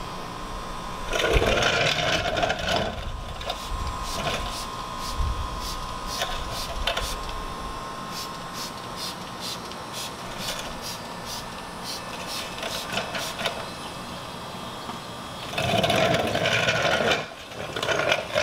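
Trigger spray bottle being pumped again and again, short spritzes of waterless car-wash spray onto a car door panel, about two a second. A louder stretch of noise comes about a second in and again near the end.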